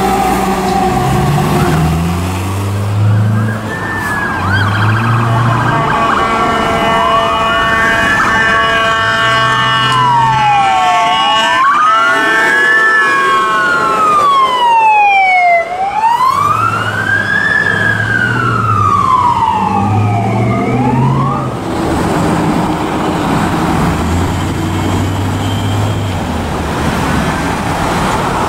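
Emergency vehicle sirens passing. At the start a siren drops in pitch as a fire-rescue truck goes by. Then a wail siren rises and falls slowly, about once every four to five seconds, and stops about three-quarters of the way through, while deep horn blasts sound again and again.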